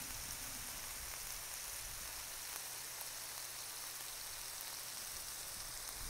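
Beef burger patties and bacon sizzling on a Blackstone flat-top griddle: a steady, even hiss.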